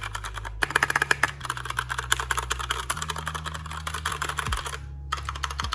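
Keys of an iQunix Lambo 62 mechanical keyboard being typed on rapidly: a dense run of clacks for about four seconds, a brief pause, then more clacks near the end.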